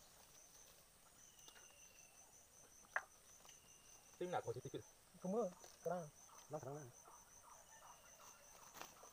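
Insects chirping in the forest, a high pulsing trill at about five pulses a second that keeps on steadily. Near the middle a person's voice makes four short sounds, which are the loudest thing heard.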